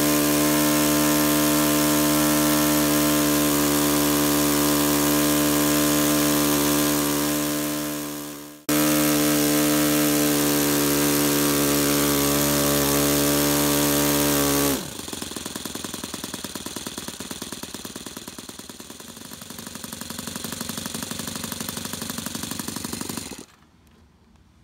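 Saito FA-62 four-stroke glow engine on a model aircraft running steadily at high throttle, with a brief break about eight seconds in. About fifteen seconds in it is throttled back sharply to a quieter, fast-puttering idle as the throttle trim and low-speed needle are set for around 2,500 rpm. The sound drops away shortly before the end.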